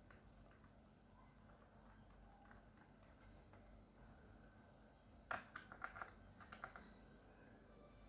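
Near silence, then a quick run of about eight to ten light clicks and taps a little past halfway, from a screwdriver and small screws being worked on a laptop's bottom panel.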